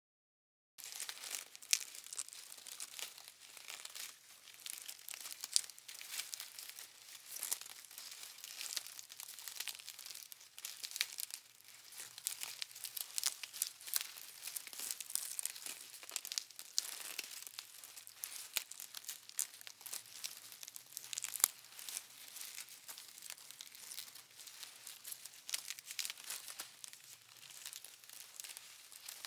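Paper being crumpled: a continuous, crisp crackle of many sharp crinkles, starting about a second in.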